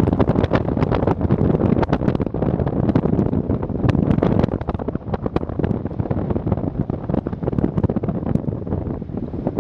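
Wind buffeting the microphone in flight: a steady rush of wind noise with frequent crackling pops, easing a little about halfway through.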